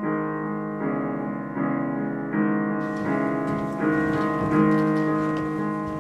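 Solo piano music: slow sustained chords, with a new chord struck about every 0.8 seconds.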